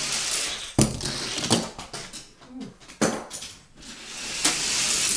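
Hot Wheels die-cast toy car running down an orange plastic track: a rushing rolling hiss that swells twice, broken by several sharp clattering knocks as the car hits and bounces.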